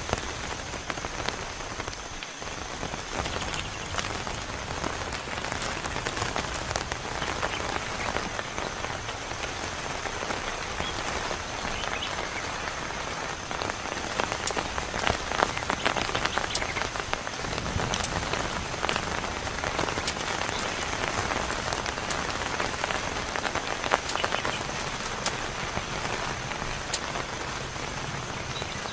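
Heavy rain falling steadily, with many sharp, close drop impacts that grow denser and louder from about halfway on.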